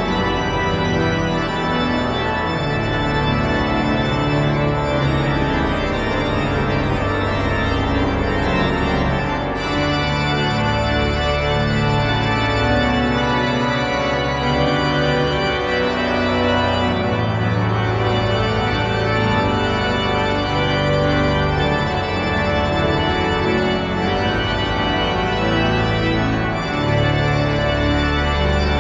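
Pipe organ playing slow, densely stacked held chords over deep bass notes, changing every few seconds; higher, brighter pitches join about ten seconds in.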